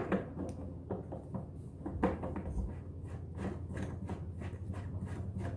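Plastic clicks and scrapes as the fuel spout is fitted and screwed onto the fuel opening of a Husqvarna combi can: a sharp click at the start, another about two seconds in, then a run of light ticks.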